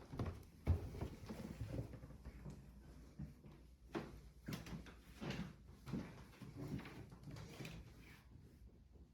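Irregular knocks and thumps in a small room, roughly one a second, the sharpest under a second in.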